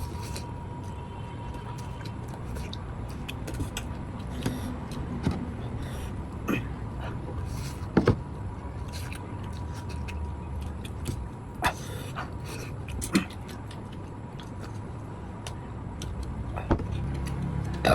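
Eating at a table: a few sharp clicks and taps of utensils against dishes, the loudest about 8 s in, over a steady low rumble.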